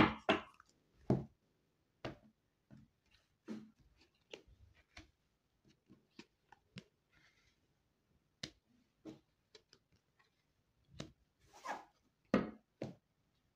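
Cards being drawn from a deck and laid down one by one on a cloth-covered table: scattered soft taps, clicks and brief slides, with quiet gaps between.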